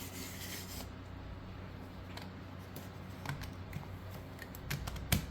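Scattered light clicks and taps of small plastic parts as an H0 model locomotive is handled to check its coupler height, with a sharper click near the end, over a faint steady hum.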